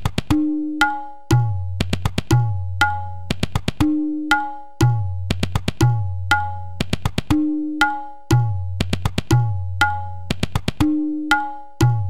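Tabla playing a looped seven-beat tewra theka at 120 beats a minute: sharp dayan strokes over deep, ringing bayan strokes, the cycle repeating about every three and a half seconds.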